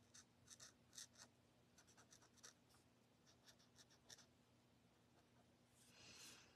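Faint short scratching strokes of a blender pen tip rubbed over stamped cardstock to lift and soften marker colour, with a longer soft stroke near the end. A faint steady hum runs underneath.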